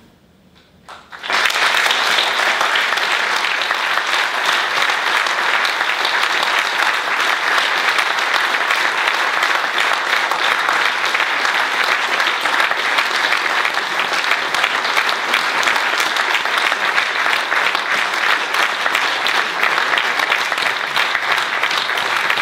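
Audience applauding steadily, breaking out about a second in after a brief hush at the end of a recited poem.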